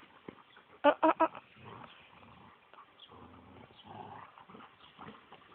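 A dog gives three quick barks in a row about a second in, then faint low growls while the dogs play over a ball.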